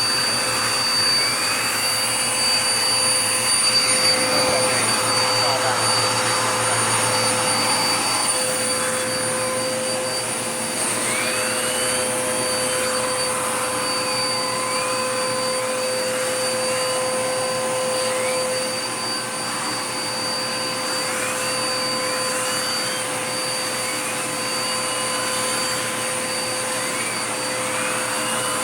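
Dirt Devil Power Max vacuum cleaner running steadily: a constant motor whine over the rush of air. Short rising-and-falling sweeps in pitch come and go throughout.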